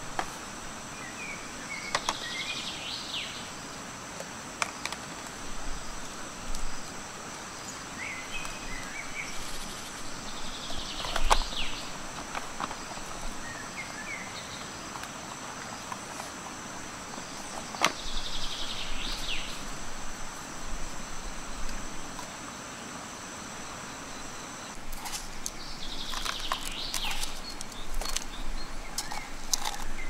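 Forest ambience: a steady high-pitched insect drone of two held tones that stops about 25 seconds in, and a bird calling a short phrase four times, roughly every eight seconds. A few sharp clicks and knocks come from a knife and a plastic food box being handled.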